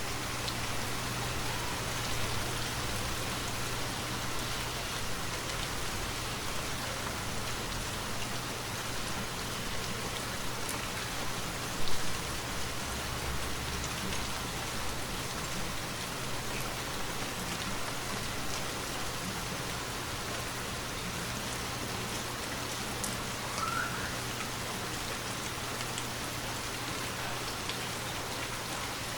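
Steady rain falling on forest trees, an even hiss of countless drops, with one brief louder knock about twelve seconds in.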